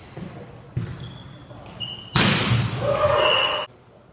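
Basketball bouncing on an indoor court, with a thud that rings in the hall about a second in. About two seconds in comes a loud noisy burst with high squeal-like tones, lasting about a second and a half and cutting off suddenly.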